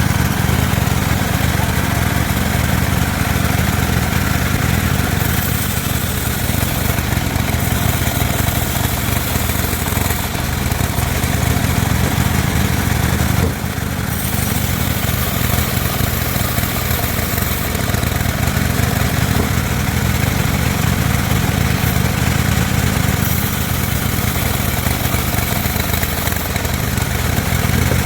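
Homemade circular sawmill at work ripping teak: its engine runs steadily while the blade's high hissing cutting noise swells and fades several times. There is a short dip in level about halfway through.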